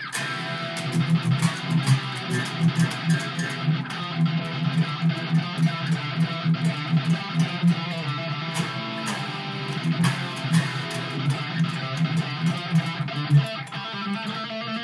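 Gibson Flying V B-2 electric guitar on its bridge pickup, played with a distorted metal amp-sim tone. It is a riff of rapidly picked low notes, heard from monitor speakers through a phone microphone.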